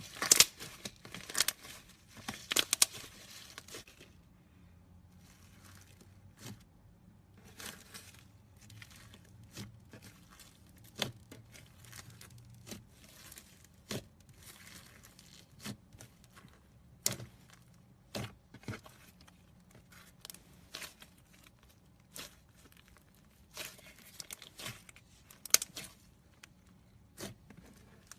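Slime being squished and stretched by hand, giving irregular crackling clicks and pops that are densest in the first few seconds, then sparser.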